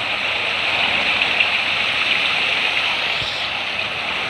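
Steady rushing noise like running water, even throughout with no distinct splashes.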